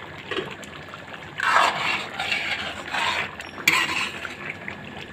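Metal spoon stirring mutton karahi in a wok (karahi), scraping against the pan in a few strokes: the first about a second and a half in, then near three and four seconds, with a gravy simmering between them.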